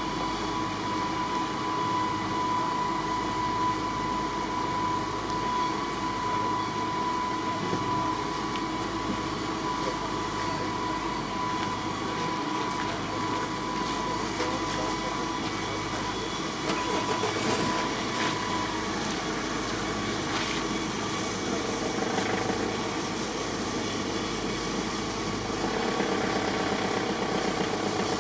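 Diamond wire saw cutting through the bridge body, a steady mechanical run with a steady whine. The whine stops about two-thirds of the way through, and lower steady tones take over.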